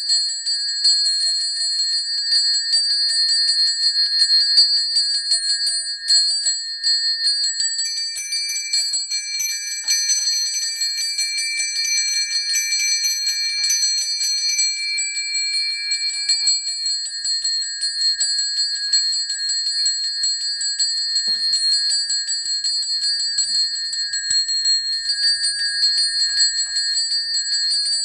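Balinese priests' hand bells (genta) ringing continuously with rapid strokes: a steady, high ringing with a quick shimmer. A second, different bell tone joins about eight seconds in and drops out a little past the middle.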